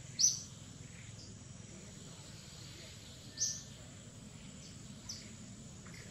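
Outdoor forest ambience: a steady high insect hiss, broken by three short high-pitched chirps, the loudest about a quarter-second in, another about three and a half seconds in and a fainter one near the end.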